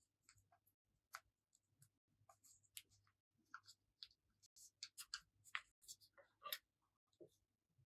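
Faint rustling and crinkling of a small piece of yellow craft paper being folded in the hands. It comes as scattered short crackles and taps that grow busier in the second half.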